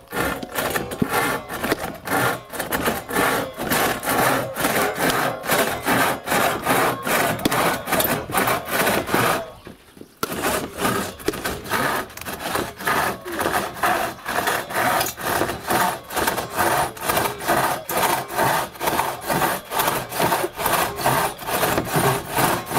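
Two-man crosscut saw cutting through a wooden board, worked back and forth at about two strokes a second, with a brief pause about ten seconds in.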